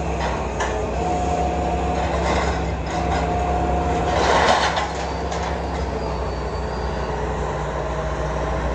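Hitachi Zaxis 225USR excavator's diesel engine running steadily, with a high hydraulic whine that comes and goes three times as the demolition cutter attachment is worked. A few sharp clicks near the start and a louder rush of noise about four and a half seconds in.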